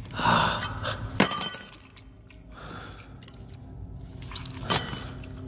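Fight-scene sound effects: a rushing burst, then a sharp crash with glassy ringing about a second in, like glass shattering, and another sharp hit near the end.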